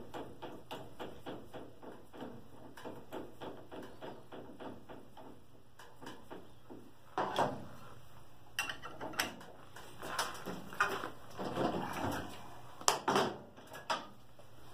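Collet nut being run down by hand onto an ER32 collet chuck in a bench tightening fixture: light, regular clicking about four times a second for the first several seconds. Then a series of metal clunks and knocks as a spanner wrench tightens the nut and the chuck is lifted out of the fixture.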